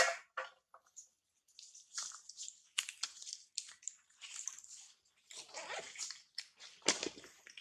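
Dry leaf crackling and crunching in irregular bursts as a baby monkey bites and handles it, with a louder crunch near the end.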